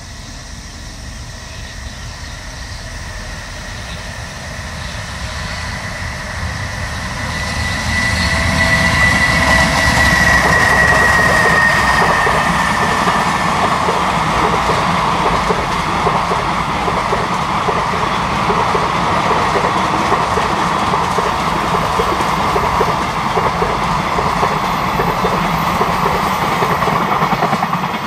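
JR Freight EH500 electric locomotive hauling a long container freight train past. The sound grows over the first several seconds as it approaches, and a high whine drops slightly in pitch as the locomotive goes by. Then the wagons' wheels run steadily over the rails until the sound falls away at the very end.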